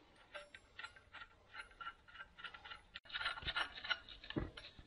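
Small metallic clicks and ticks as a clutch pressure plate is fitted onto the flywheel, busier from about three seconds in, with two dull knocks near the end.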